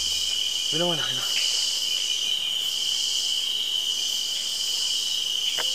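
Chorus of night insects trilling steadily at one high pitch, with a second, hissier layer above it swelling and fading about every second and a half. A brief voiced sound rises and falls about a second in.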